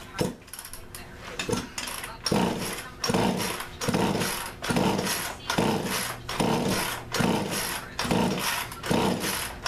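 Poulan Pro chainsaw's two-stroke engine being pull-started by its recoil starter: about ten quick rope pulls in a row, a little under one a second, the engine turning over without catching. The owner puts the failure to start down to flooding with too much fuel.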